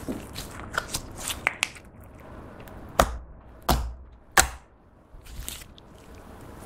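Glossy pink slime being stretched and pressed by hand: a quick run of small sticky clicks and crackles, then three louder pops around the middle as the fingers press into and pull out of it.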